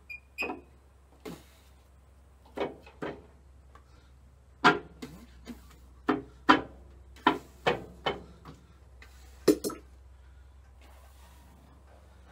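Hand tools clinking and knocking against metal parts while a water pump is worked on at the front of a tractor engine: about a dozen sharp, irregular strikes that stop after about ten seconds.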